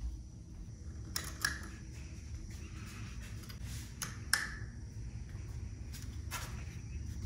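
A table lamp's switch clicking as the lamp is turned off, among a few other short sharp clicks, over a low steady hum.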